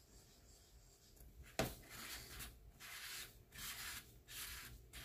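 Wooden stir stick mixing two-part epoxy resin in a small cup: a sharp click about one and a half seconds in, then four scraping strokes of about half a second each.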